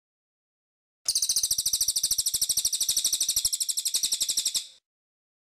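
Cililin singing one fast, high, rattling trill of about a dozen notes a second. It starts about a second in and lasts nearly four seconds.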